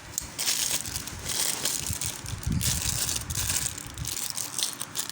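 Plastic packaging crinkling and rustling in irregular bursts as it is handled, with a few soft knocks.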